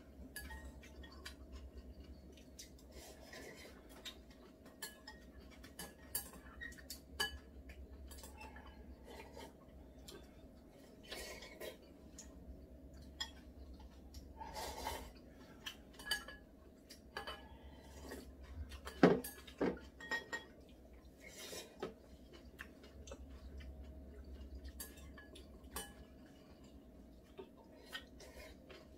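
Chopsticks tapping and clinking against ceramic bowls and plates while eating, in scattered small clicks with one sharper clack about nineteen seconds in. A faint steady low hum lies underneath.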